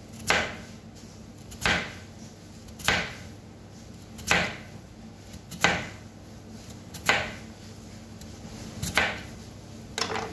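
Crinkle-cut knife slicing through a peeled raw potato onto a plastic cutting board. It cuts one slice at a time in a steady rhythm, about eight short strokes, one roughly every second and a half.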